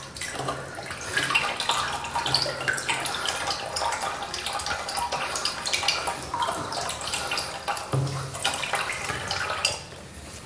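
Water running and splashing in a plastic toilet cistern from its reopened inlet, as hands rinse the fill valve's rubber seal clean of grit. The splashing dies down about a second before the end.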